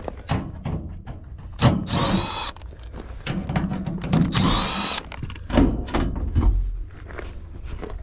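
Milwaukee FUEL cordless drill-driver spinning in two short whirs, about two and four and a half seconds in, working the screws of a heat pump's access panel. Clicks and knocks of handling the panel and tool come between the whirs.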